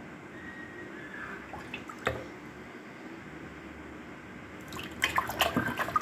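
Hands splashing in a clay bowl of water while washing peeled onions, a quick run of small splashes and drips in the last second or so. Before that, steady background noise with a single sharp knock about two seconds in.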